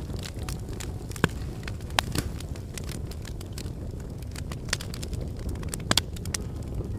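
Wood fire burning: many sharp crackles and pops over a low steady rush. The loudest pops come about a second in, at two seconds and near the end.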